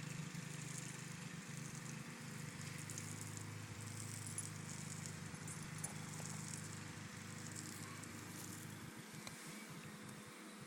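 A puppy chewing on a piece of bark: faint, irregular crackling and crunching with a few small clicks. A steady low hum runs underneath and fades out about nine seconds in.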